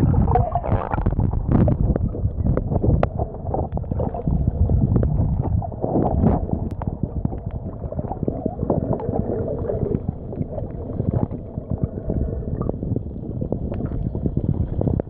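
Muffled underwater sound as heard by a camera held under water: a steady low rumble of moving water with gurgling and many small scattered clicks.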